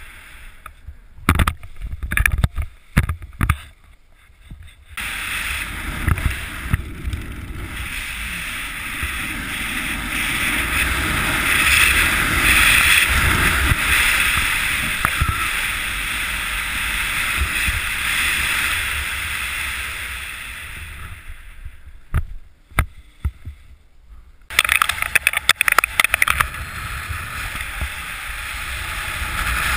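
Wind rushing over a helmet camera's microphone during parachute canopy flight and landing. A few sharp knocks come near the start and again about two-thirds through, where the wind noise drops out abruptly for a few seconds.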